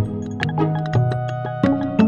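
Background music: held keyboard-like notes over a shifting bass line, with light, quick percussion ticks.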